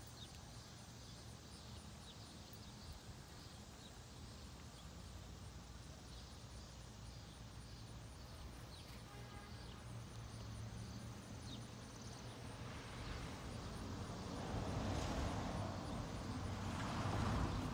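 Quiet outdoor background: a steady low hum with faint, evenly spaced high ticks, and a rushing noise that swells over the last five seconds or so.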